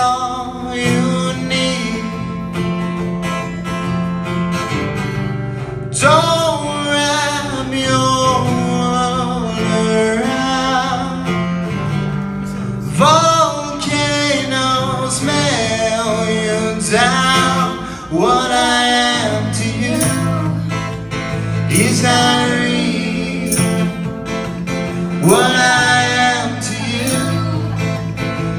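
Live acoustic song: a man singing while playing an acoustic guitar. The sung phrases last a few seconds each, with short breaks between them, over steadily strummed chords.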